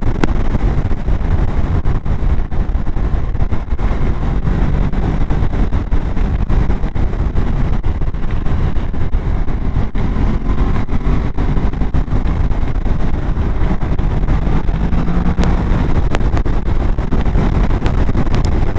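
Motorcycle under way at road speed: a steady engine note mixed with wind noise on the microphone.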